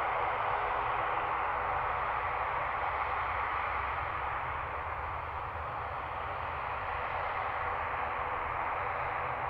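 Aircraft engine noise: a steady rushing hiss over a low rumble, dipping slightly about halfway through.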